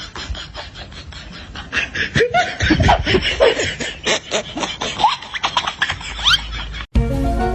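People laughing in quick bursts with high squeals. About seven seconds in, it cuts off suddenly and background music begins.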